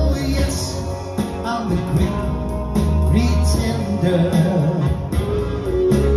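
Man singing a soul number into a microphone over a backing track, with long held notes over a steady bass line.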